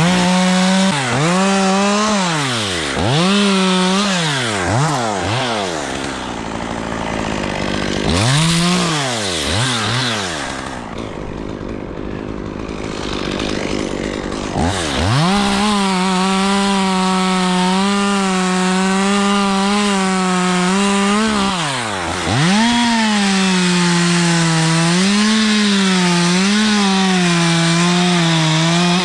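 Gas chainsaw revving up and dropping back to idle several times, then running at full throttle through two long cuts, its pitch dipping and wavering as the chain bites into the wood.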